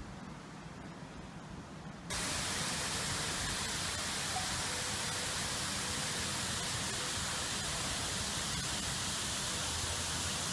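Steady hiss of falling water that comes in suddenly about two seconds in, after a quieter stretch.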